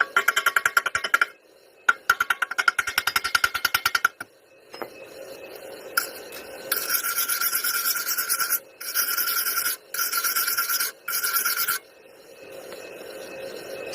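Stick (arc) welding on steel: first two runs of rapid, even scraping strokes of metal on metal, then from about six seconds a steady crackling hiss in four stretches with short breaks between them.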